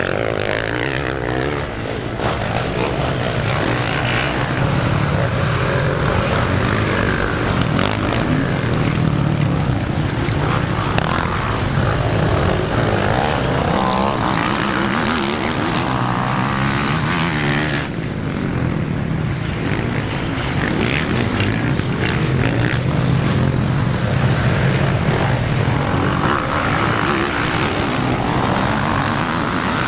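Several 250–450 cc motocross bikes racing together, their engines revving up and down and overlapping, the pitch rising and falling continuously as they accelerate and back off.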